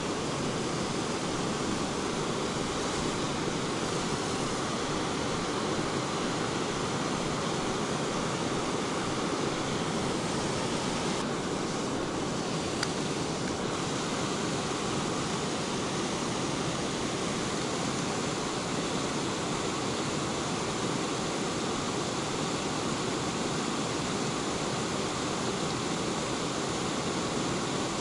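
Steady rush of water pouring over a low river weir.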